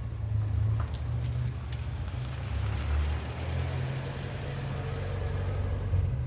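A car pulling away and driving close past: a steady low engine hum, with tyre and road noise swelling as it goes by.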